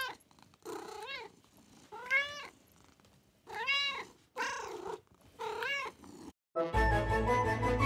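A cat meowing about six times, each meow rising and then falling in pitch. About six and a half seconds in, music with a steady bass line starts.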